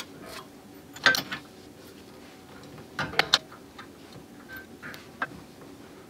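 A few scattered sharp metal clicks and taps as the brake caliper's pad spring and retaining pin are worked back into place by hand.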